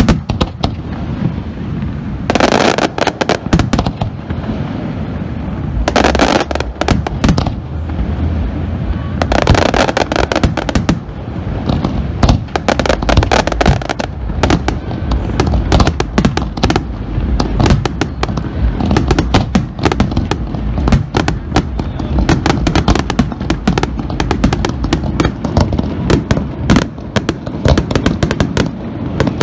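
Aerial fireworks display: a rapid, continuous string of booms and bangs, with three denser, brighter stretches of reports about 2, 6 and 9 seconds in.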